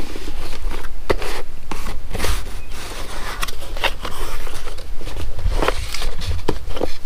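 Cardboard mailer box opened by hand: the lid flaps are lifted and the paper packing inside is handled, giving irregular crackling, rustling and scraping.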